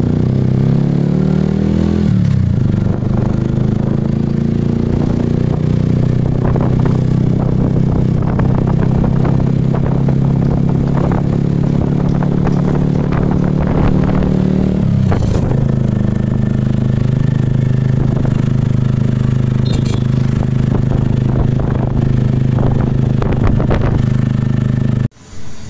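Small engine of a canopied motorcycle taxi running under way, its pitch rising over the first two seconds and shifting again about fifteen seconds in, with the body rattling over the road. The sound cuts off suddenly near the end.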